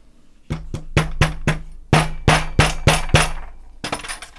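Rubber mallet tapping an airsoft hop-up chamber into its groove in the outer barrel, about ten quick blows at roughly three a second, each with a short ring. The chamber is a very tight fit.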